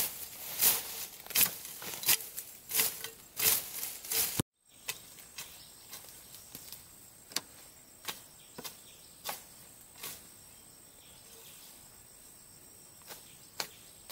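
Sharp, evenly paced knocks, about three every two seconds, loud for the first four seconds or so. After an abrupt cut they carry on much fainter over a steady thin high insect whine.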